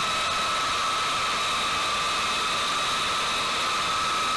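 TF33 turbofan engines of a taxiing B-52 Stratofortress: a steady rushing noise with a high whine held at constant pitch.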